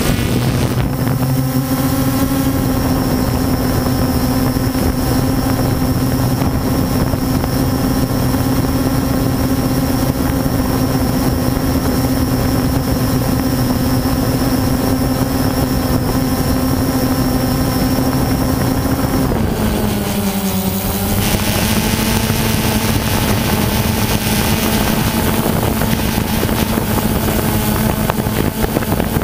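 DJI Phantom 2 quadcopter's electric motors and propellers buzzing in flight, heard up close from the camera slung beneath it. The buzz holds one steady pitch, then wavers and settles slightly lower about twenty seconds in as the motor speed changes.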